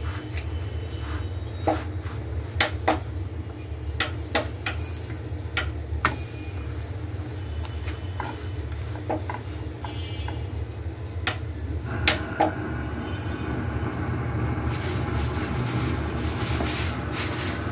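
Paratha frying in a nonstick pan: light sizzling with the spatula's scattered taps and scrapes against the pan. About twelve seconds in the sizzling grows louder and hissier.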